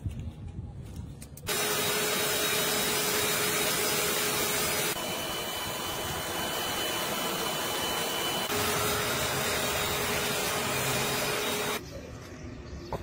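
Electric air blower running steadily, forcing air into a charcoal forge: a loud rush of air over a steady motor hum. It starts abruptly about a second and a half in and cuts off shortly before the end.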